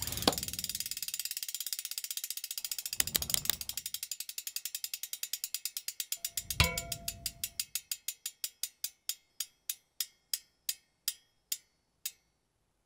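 Ratcheting clicks of a bicycle freehub as a spinning wheel coasts, rapid at first and slowing steadily until they stop near the end. Three deep thumps come in the first seven seconds, the loudest about six and a half seconds in.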